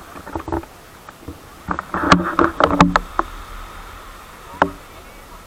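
A cluster of sharp knocks and clatter, some with a short ringing tone, about two to three seconds in, a few lighter ones near the start and one more knock near the end, over a steady background hiss.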